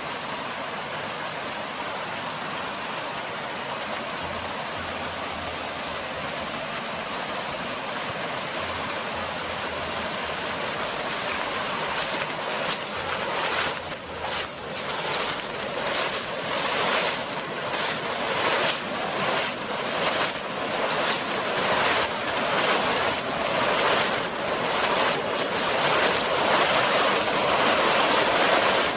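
A small river rushing over rocks: a steady wash of water that grows louder about halfway through and turns uneven, with many short splashing surges.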